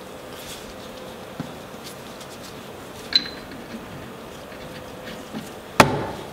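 Faint steady shop hum with a few small clicks and a brief metallic clink from hands handling a Loctite bottle and small parts, then one sharp knock near the end.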